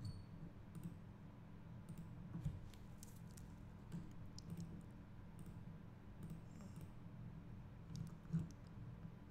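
Faint computer mouse clicks and scroll-wheel ticks, scattered irregularly, over a low steady hum.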